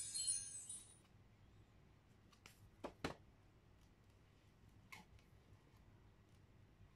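A chiming jingle fades out in the first second. Then faint clicks and taps from a small cardboard board book being handled and opened: two close together about three seconds in and one more about five seconds in.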